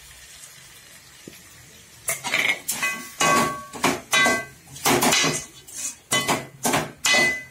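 Metal ladle scraping and clanking against the inside of a metal cooking pot while quail pieces are stirred with ground onion paste. It starts about two seconds in as a run of quick strokes, roughly two a second, with a light ringing from the pot.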